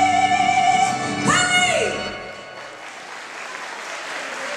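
The show music ends on a long held note that bends up and then slides down to a stop. From about halfway through, audience applause rises and builds.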